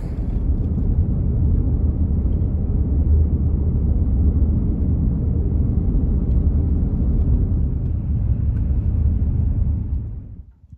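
Steady low rumble of a car driving, road and engine noise heard from inside the cabin; it fades out near the end.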